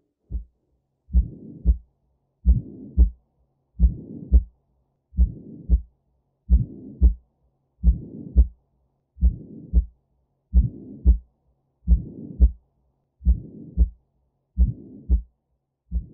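A slow heartbeat: paired low thumps, lub-dub, repeating steadily about every 1.35 seconds.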